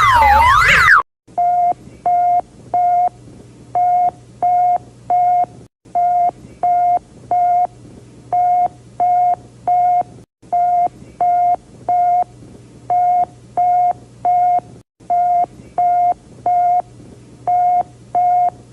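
Fictional Emergency Alert System alarm audio: a sweeping siren wail that cuts off about a second in, then a single pitched electronic beep repeating in groups of three with a short pause between groups, over a low steady hum.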